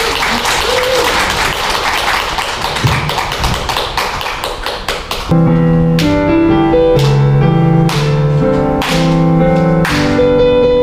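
Audience applauding for about five seconds, then a piano starts a song introduction, struck chords ringing out about once a second.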